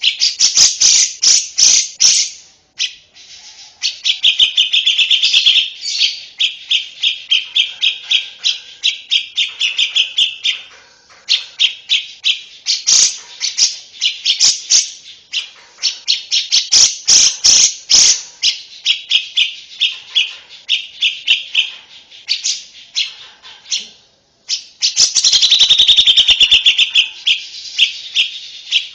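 Lovebird singing: long runs of rapid, high-pitched chirps, several a second, broken by a few short pauses.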